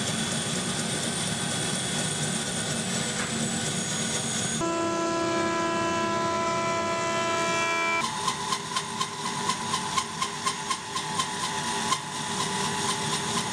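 Woodworking machines running, in three abrupt cuts: a band saw resawing a slab, then a jointer with a steady whine, then a band saw again with a rhythmic ticking about three times a second.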